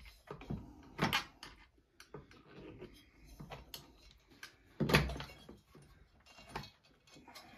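Clunks and small rattles of a Stihl MS461 chainsaw being handled during teardown, parts knocked and shifted by hand, with two louder knocks about a second in and about five seconds in.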